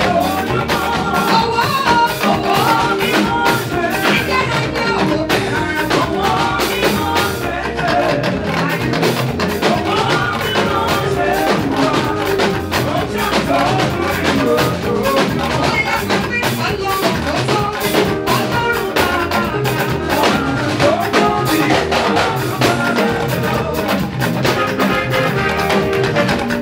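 Live gospel praise music: a woman singing lead over a band of talking drums, keyboard and a steady drum beat.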